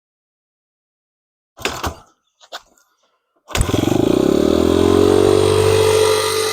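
A brief clatter, then a 2002 Honda XR100R's single-cylinder four-stroke engine catches on a cold start with the choke on about three and a half seconds in. It climbs quickly in pitch and settles into a high, racing idle.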